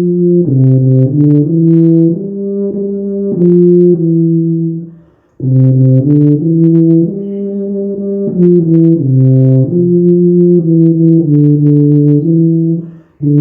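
Tuba playing a melody: a run of held and moving notes in two phrases, broken by a short pause for breath about five seconds in and another near the end.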